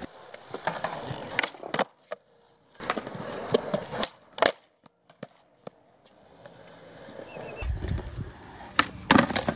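Skateboard on smooth concrete: wheels rolling, with sharp wooden clacks of tail pops and the board landing back on the ground, several in quick pairs.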